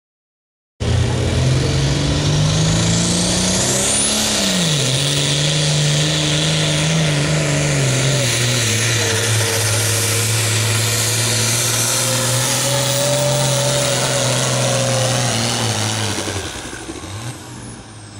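Diesel pro farm pulling tractor at full throttle, dragging a weight-transfer sled. The engine note starts abruptly, rises and dips briefly about four seconds in, then holds steady, and falls away as it throttles down near the end of the pull.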